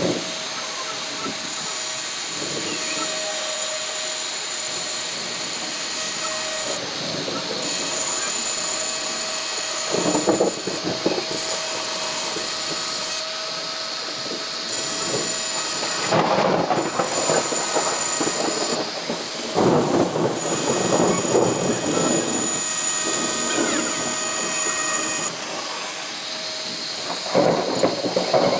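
Steady rain, with the high whine of a small electric engraving pen as its tip grinds into a glass bottle. Louder spells of noise come and go several times.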